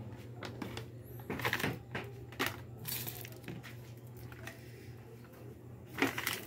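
Pork humba simmering in an aluminium pot: irregular bubbling and crackling from the boiling sauce, with a few louder bursts, over a steady low hum.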